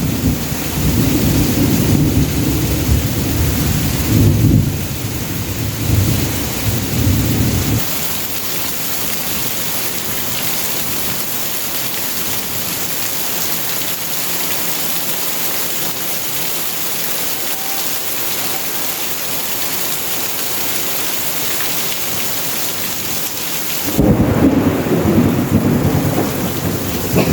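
Heavy tropical downpour, a steady hiss of rain. A loud, fluctuating low rumble runs under it for the first several seconds, cuts out abruptly, and comes back suddenly near the end.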